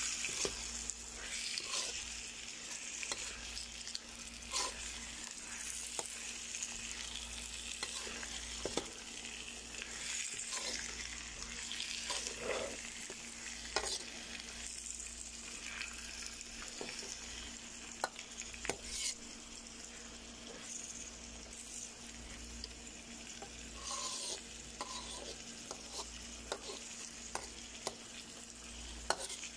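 Sliced bitter melon stir-frying in a pan with its chopped spices: a steady sizzle, with a metal spoon scraping and clinking against the pan as it is stirred.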